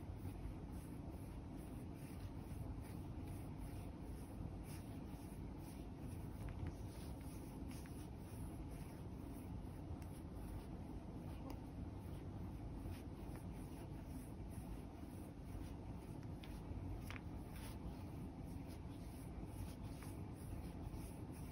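Facial massage roller's nubbed plastic wheels rubbing over a cat's fur in repeated strokes: a faint, steady scratchy rubbing.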